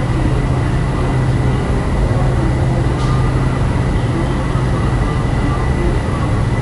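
Boat engine droning steadily with a low hum and a thin high whine, heard from on board.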